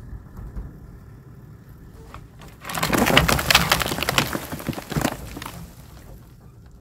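Flood-washed logs and branches cracking and snapping as a vehicle drags the tangled debris free, a loud burst of crackling starting about a third of the way in and dying away near the end, over a low engine rumble.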